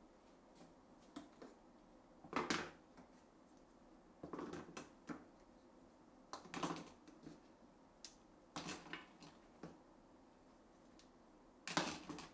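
One-handed quick-release bar clamps being released and set down one after another: about five bursts of plastic-and-metal clicking and clattering, roughly every two seconds.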